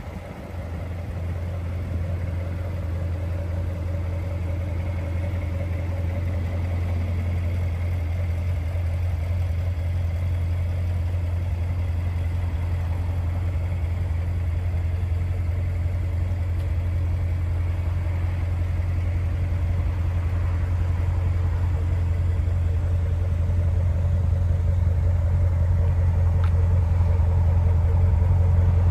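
A 2018 Chevrolet Corvette Stingray's 6.2-litre LT1 V8 idling steadily through its performance exhaust, a low even hum that grows gradually louder.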